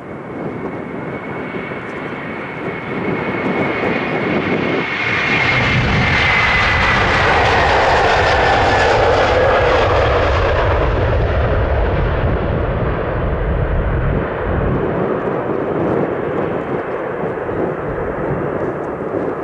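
The twin GE CF6-80E1 turbofans of a KLM Airbus A330-300 at takeoff power as it rolls down the runway and past. A high fan whine slides down in pitch as it goes by, loudest about eight to ten seconds in, then eases into a lower rumble as the airliner lifts off and climbs away.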